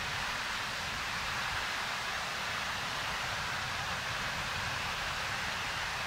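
Waterfall: a steady, even rush of falling water with a low rumble underneath.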